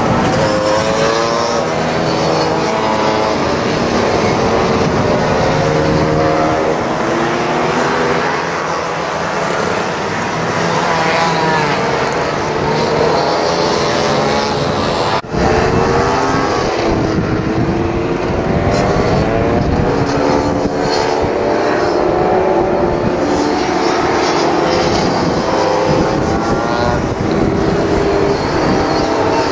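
Several racing scooters' two-stroke engines revving together, their pitches rising and falling and overlapping as they accelerate and brake round the corners. There is a brief dropout about halfway through.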